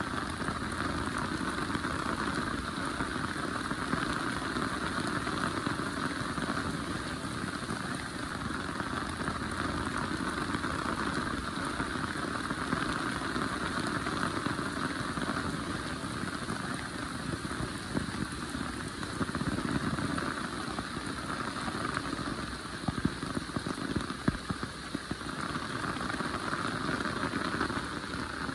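Heavy rain falling steadily, a dense, even patter of drops on surfaces, with a few louder sharp taps about three-quarters of the way through.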